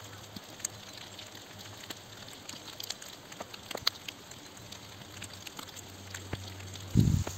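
Footsteps in thin snow over dry leaves and twigs: scattered crackles and snaps, with a short, loud low thump near the end.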